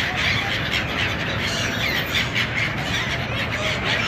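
A flock of gulls calling all at once: many short, overlapping squeals and cries, over a steady low rumble.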